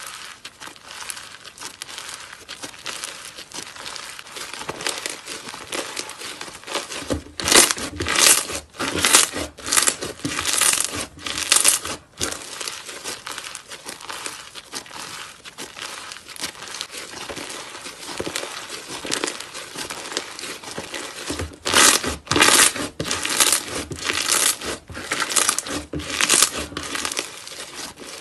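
Slime being squished and worked by hand: a continuous run of short, irregular noisy squishes, with two louder stretches of quick presses, about a third of the way in and again near the end.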